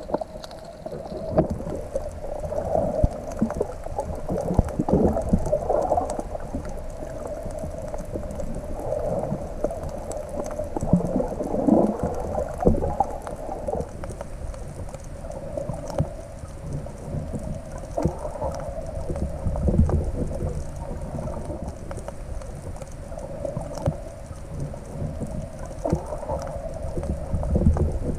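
Underwater sound picked up by a submerged camera while snorkelling: muffled sloshing and gurgling of water with low rumbling swells every few seconds and scattered faint clicks.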